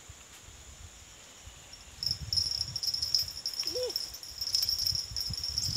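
Insects chirring: a high, steady, pulsing drone that sets in about two seconds in, over a low rumble.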